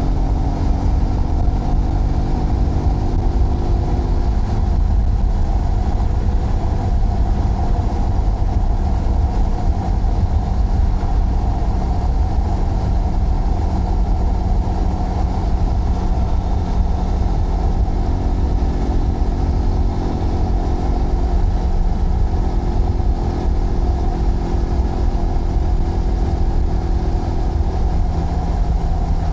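Zontes GK 125 motorcycle's single-cylinder engine running under way at a fairly steady pace, over a heavy low wind and road rumble. Its pitch dips a little a few seconds in and rises again in the second half.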